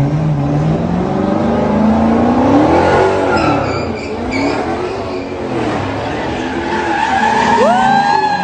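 Car engine revving hard while a car does donuts, its tyres screeching on the pavement. The engine pitch climbs steadily for the first few seconds, then rises and falls again and again. Near the end a high cry rises and falls.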